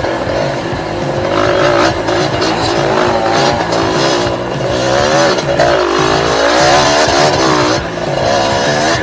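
125 cc two-stroke Yamaha dirt bike engine revving up and down in quick rises and falls as the rider works the throttle over rough trail, with background music.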